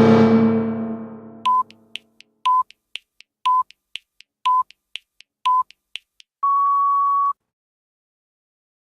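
An arena goal horn with several pitches sounding together dies away over the first second or so. Then a countdown timer beeps: five short beeps a second apart with faint ticks between them, then one long, slightly higher beep that marks the time being up.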